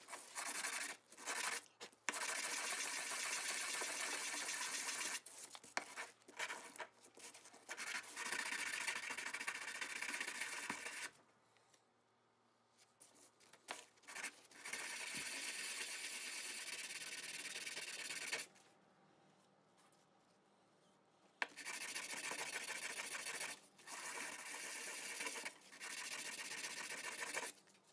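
3D-printed steel-bronze branding-iron head rubbed back and forth by hand on flat sandpaper, about 240 grit, to smooth its rough face: a steady scratchy rasp in stretches of several seconds, with two pauses of about three seconds each, one near the middle and one about two-thirds through.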